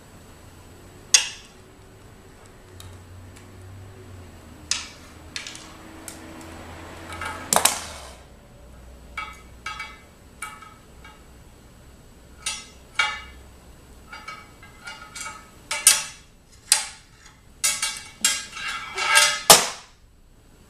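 Small metal utensils and tools clinking and tapping against each other, a plate and a glass tabletop: irregular sharp clinks, a few at first, then coming thick and fast in the second half, the loudest near the end.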